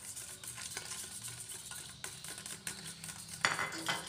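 Metal spoon beating raw eggs in a stainless steel bowl: rapid repeated clinking and scraping against the bowl, with one louder clatter near the end.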